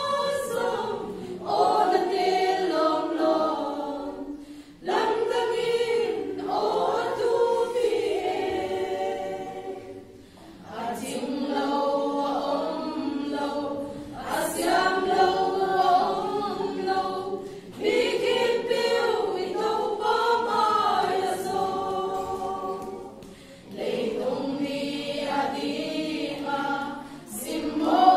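Women's choir singing a hymn unaccompanied, in phrases a few seconds long with short breaks for breath between them.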